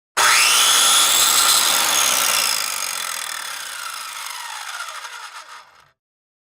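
A power tool's motor starts abruptly and whines up to speed within a fraction of a second, then winds down over a few seconds, its pitch falling as it fades out.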